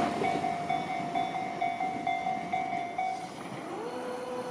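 Japanese level-crossing warning bell ringing, about two electronic dings a second, while the noise of a passed train fades. The bell stops about three seconds in, and a rising whine then settles into a steady hum.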